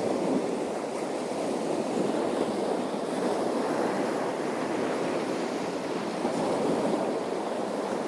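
Waves washing steadily against the shore, an even rushing noise with no distinct breaks or impacts.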